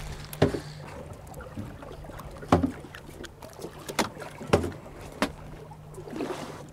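Boat engine idling with a steady low hum, broken by about five sharp knocks on the boat, the loudest about two and a half seconds in.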